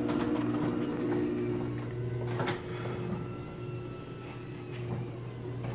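Electric garage door opener motor running with a steady hum, driving the door along its track on freshly lubricated springs and hinges, with a faint knock about two and a half seconds in.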